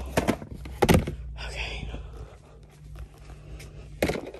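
Hard plastic storage bins and trays knocking and clattering against each other as they are handled and stacked, with a sharp knock about a second in and another near the end.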